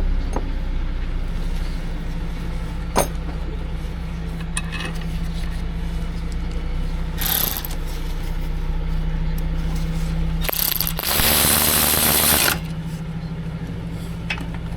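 Mechanical work sounds with a few sharp clicks over a steady low engine-like hum, and a loud hiss lasting about two seconds about ten seconds in.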